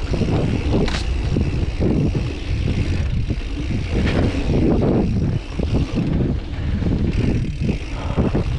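Mountain bike riding over a dirt forest trail: tyres rumbling and the bike rattling on the uneven ground, mixed with wind buffeting the camera's microphone, with two sharper knocks about one and four seconds in.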